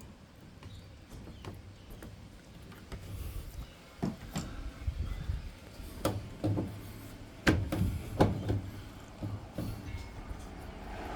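Irregular knocks and clicks of a washing machine part being worked loose by hand, with two sharper knocks about three quarters of the way through.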